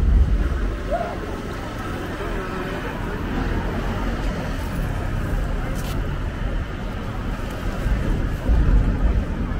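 Busy city street ambience: road traffic running with a low rumble under the background chatter of a crowd. About eight and a half seconds in, a vehicle passing close swells louder.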